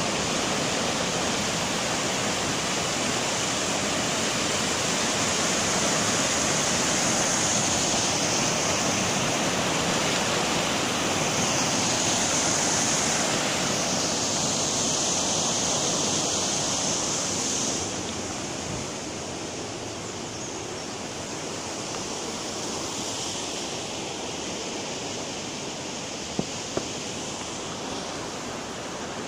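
Water rushing through the bars of a sluice gate and spilling over a low weir in a steady torrent of white water, growing softer about two-thirds of the way through. Two brief clicks near the end.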